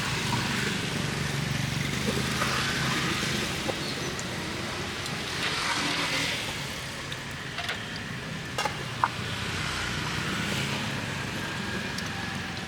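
Street traffic going by, with motorbike and car engines passing, and a few short sharp clicks in the second half.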